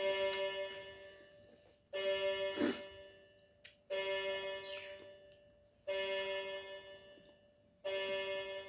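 Background music: slow keyboard chords struck about every two seconds, each ringing and fading away, with a few brief clicks between them.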